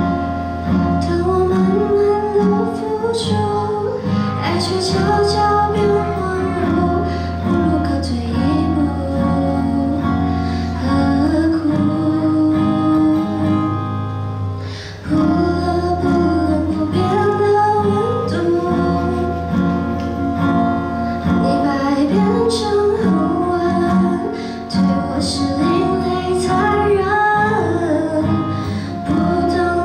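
Live song: a young woman sings into a microphone over strummed and picked acoustic guitar, with cajón beating the time.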